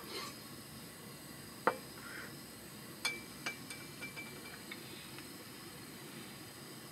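Chopsticks clicking against a small metal bowl: one sharp click, then a few lighter clicks with a faint thin ring, over a low steady hiss.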